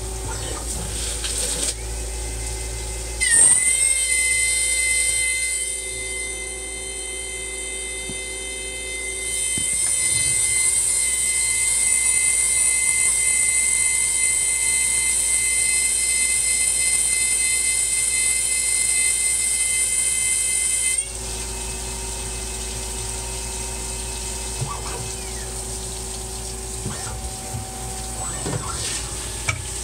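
Cubic GTV-42 CNC lathe running under flood coolant while turning stainless steel stock. About three seconds in, a high-pitched whine rises briefly as the spindle comes up to speed, holds steady over the hum of the machine and the splash of coolant, and cuts off suddenly about two-thirds of the way through.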